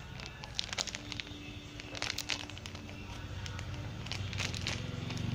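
Crinkling, crackling handling noise with many small clicks as a squishy toy is handled close to the microphone. A low hum grows louder near the end.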